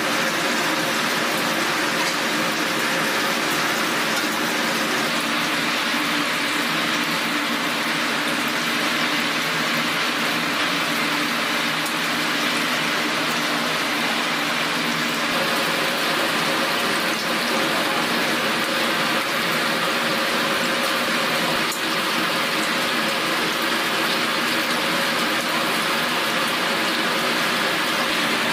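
Batter-coated chicken pieces deep-frying in a wide pan of hot oil: a steady, dense sizzling.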